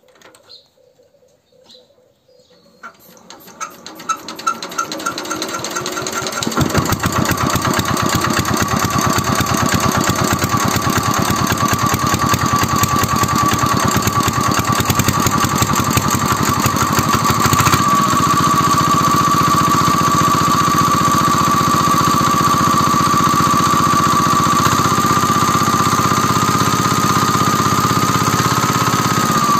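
4 hp single-cylinder diesel engine starting about three seconds in, picking up speed over the next few seconds, then running steadily with a fast knocking beat and a steady high whine over it.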